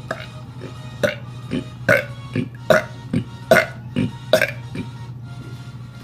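A boy burping in a quick run of short burps, about two a second, that stops shortly before the end, over a steady low hum.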